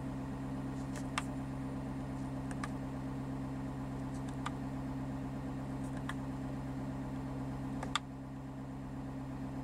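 Push-buttons on a 2020 Ford F-250's dashboard radio head unit clicking about six times, irregularly, as its menus are stepped through, over a steady low hum.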